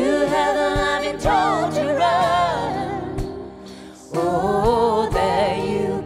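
Live music: a woman singing a sustained melody with wide vibrato over steady low accompanying notes.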